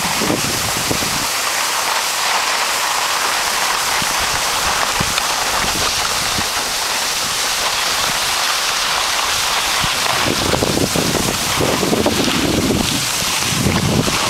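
Wind buffeting the microphone over a steady hiss of skis sliding on packed snow. The low wind rumble drops away after about a second and comes back about ten seconds in.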